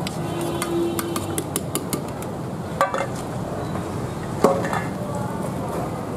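Clinking and clattering of metal dishes and utensils over a steady background hum, with two louder metallic clanks about three and four and a half seconds in.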